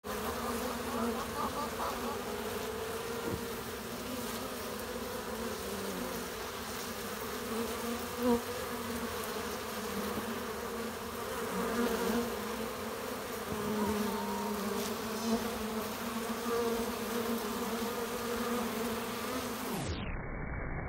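A busy honeybee colony at the hive entrance: many bees buzzing at once in a steady, even hum, the sign of heavy flight activity. The sound turns muffled near the end.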